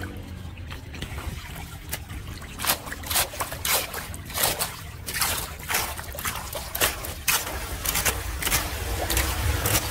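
Floodwater splashing and sloshing as a hand rake and gloved hand drag leaves and debris off a submerged storm-drain grate, with water churning down into the drain. Repeated sharp splashes start about two and a half seconds in, over a low steady rumble.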